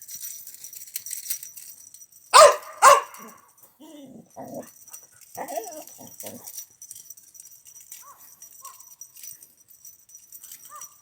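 A dog barks twice in quick succession about two seconds in, followed by a string of softer whining yelps and a few faint whimpers later on.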